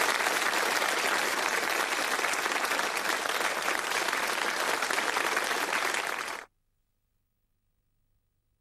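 Theatre audience applauding, a dense steady clapping that cuts off abruptly about six and a half seconds in.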